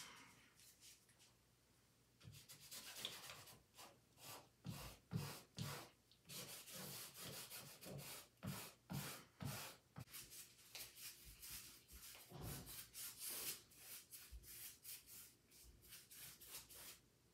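Acrylic paint marker scribbling across a gessoed painting surface, starting about two seconds in. The marks come in quick, dry, scratchy rubbing strokes, one after another.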